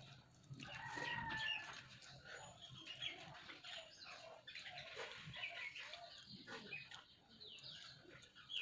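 Close-up eating sounds: wet chewing and lip smacking as rice and curry are eaten by hand from a steel plate, made up of many small clicks. Short, high squeaky sounds are scattered through it, and a brief pitched sound comes about a second in.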